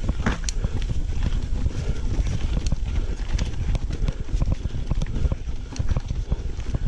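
Mountain bike clattering over a rough dirt trail: a continuous run of rapid knocks and rattles over a steady low rumble.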